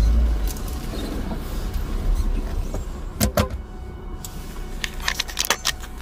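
Car engine running low while the car drives over a rough dirt track, with sharp clicks and knocks about three seconds in and a cluster more near the end.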